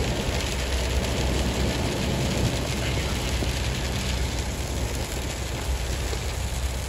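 Steady in-cab driving noise of a truck on a wet highway in rain: a low engine and tyre rumble under the hiss of rain and road spray.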